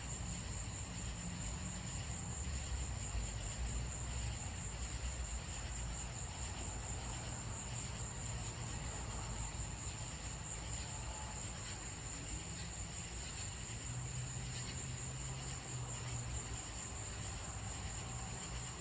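Night insect chorus: a steady high-pitched trill, like crickets, over a low background rumble.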